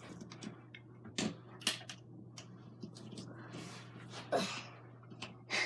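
Scattered small clicks and rustles of objects being handled, over a steady low hum.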